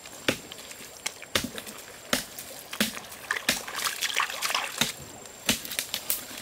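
Wet mud and stream water being scooped and slapped by hand: irregular wet splats, with a denser stretch of splashing and sloshing in the middle.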